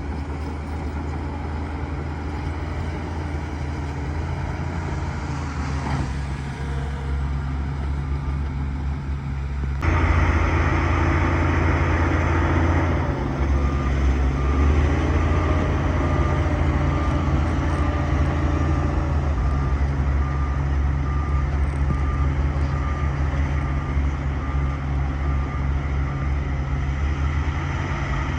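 Bulldozer's diesel engine running steadily and getting louder about a third of the way in as it works harder. Through much of the second half a reversing alarm beeps about once a second.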